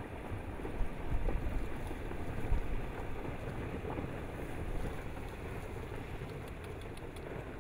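Rockfall from a disintegrating lava dome, set off by volcanic earthquakes: a continuous low rumble of rock and debris tumbling down the slope.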